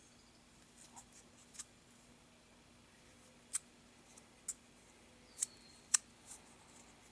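Thread tape being handled and wrapped onto the threaded ends of the pipes and washer valves: a scatter of small, sharp ticks and crinkles, the loudest about six seconds in, over a faint steady hum.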